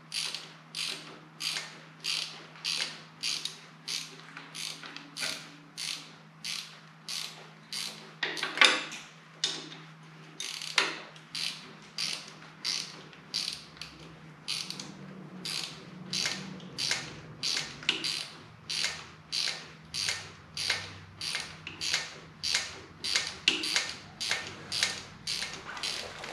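Hand ratchet wrench clicking through short back-and-forth strokes, about two a second, as a nut is worked off a long transmission mounting stud. Two strokes, near 9 and 11 seconds in, are louder.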